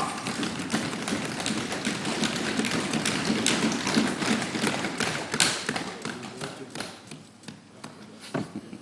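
Many people thumping on wooden desks at once, a dense run of irregular knocks that thins out and dies away over the last few seconds: parliamentary desk-thumping in approval of an announcement.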